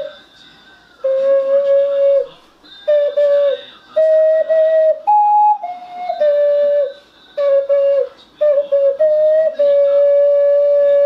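A slow melody played on a small ocarina, in short phrases with breath gaps between them. It has a few higher notes in the middle and ends on a long held note.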